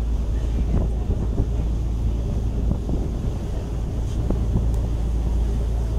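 Wind buffeting the microphone on a moving boat, over the steady low drone of the boat's engine.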